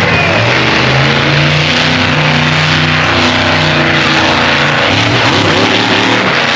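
Large engine revving, its pitch rising and falling in steps, over dense background noise.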